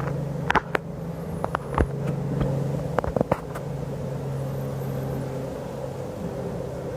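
Steady drone of a Robinson helicopter passing, a low hum on two fixed pitches. In the first few seconds it is broken by a scatter of sharp clicks and knocks.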